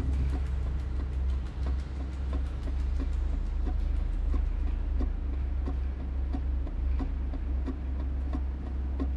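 Film soundtrack sound design: a deep, steady drone with a regular ticking over it, about three ticks every two seconds.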